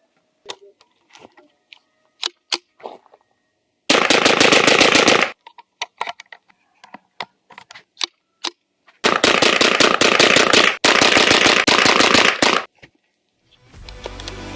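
EGE Adler RF-224 .22 LR rifle firing in two rapid strings of shots: a burst of about a second and a half, then a longer string of about three and a half seconds with a brief break partway. Scattered sharp clicks come before and between the strings.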